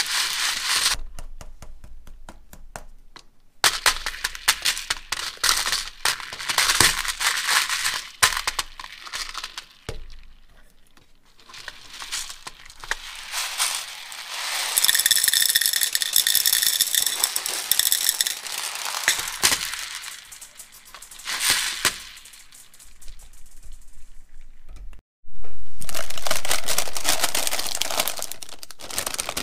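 Toys being handled for their sounds: a run of rattling, clicking and crinkling, a ringing tone with several pitches in the middle, and a sudden loud sound near the end that fades away slowly.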